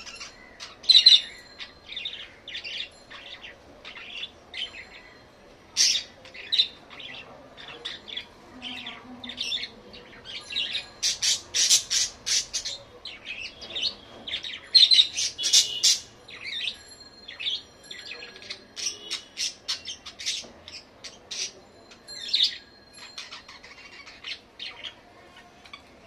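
Several budgerigars chirping and chattering: a continual stream of short, high calls, with louder clusters of rapid chirps about a second in and again around the middle.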